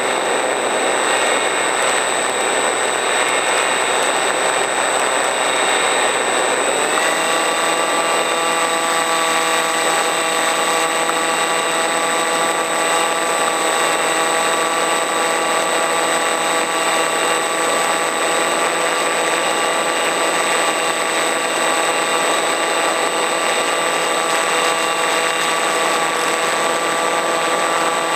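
RC model plane's motor and propeller in flight, heard through the onboard camera's microphone: a steady drone with a haze of rushing air. About seven seconds in, its whine rises slightly in pitch and then holds steady.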